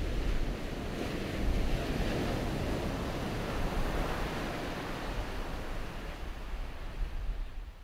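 Ocean surf breaking and washing up a beach, with strong wind buffeting the microphone. The surf swells in the middle and fades away near the end.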